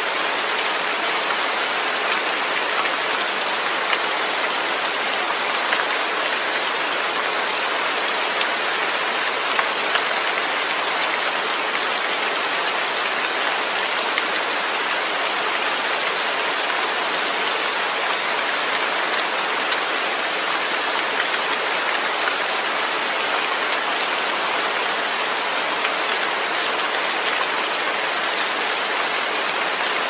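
Steady rain falling, a dense, even hiss of many drops with a few slightly louder patters, and no thunder.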